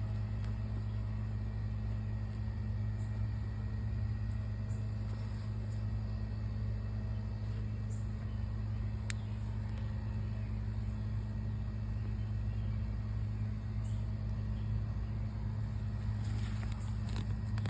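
A steady low machine hum that holds one pitch without change, with a faint click about halfway through.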